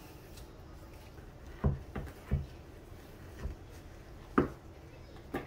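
Kitchen knife cutting through raw pork on a cutting board: about six separate knocks and thuds, the loudest a little past four seconds in.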